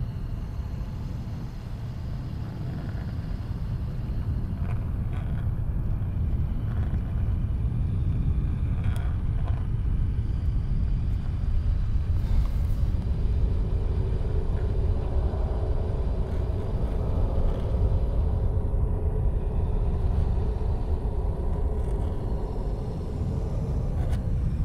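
Low rumbling drone of a horror film's sound design, slowly swelling, with a sustained higher tone joining about halfway through.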